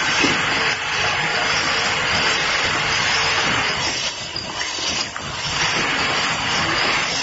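Automatic cap assembly machine running with a vibratory bowl feeder feeding plastic caps: a steady noisy machine sound with a few faint clicks, dipping briefly about four seconds in.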